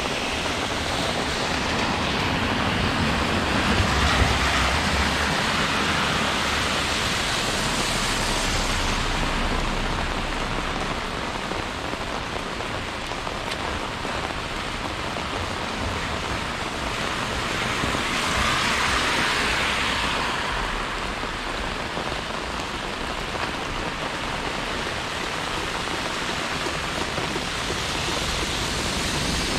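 Steady hiss of rain falling on wet streets. The hiss swells louder and fades away twice.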